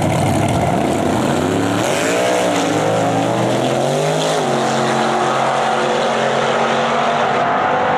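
Two drag cars, a Fox-body Mustang and a Chevy S10 pickup, launching off the line and accelerating hard down the strip. About two seconds in, the engine pitch climbs and drops back several times as they shift gears, then settles into a steadier, more distant drone as they pull away.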